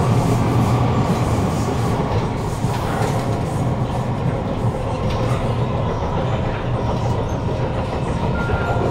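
Kawasaki Heavy Industries C151 metro train (PMSM variant) in motion, heard from inside the carriage: a steady rumble of the wheels and running gear on the track. A short faint high tone comes in near the end.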